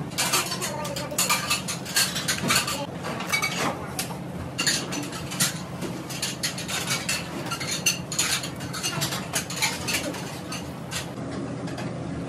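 A long knife cutting and scraping through a whole raw fish on a plastic cutting board: a run of quick scrapes and sharp clicks as the blade works along the bones and knocks the board, over a steady low hum.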